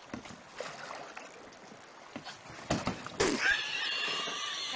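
A few knocks and thumps as a man topples backward into a small rowboat, followed by a loud, high-pitched, wavering squeal of laughter.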